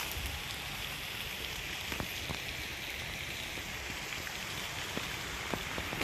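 Steady rush of a flowing river, with a few sharp snaps of twigs and dry leaves underfoot.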